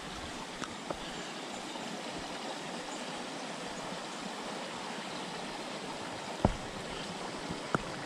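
Steady rush of a flowing creek, with a few footsteps on the dirt trail; the loudest step lands about six and a half seconds in.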